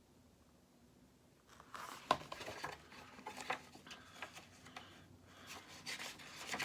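Book page being turned and handled: soft paper rustling with small irregular clicks, starting about a second and a half in.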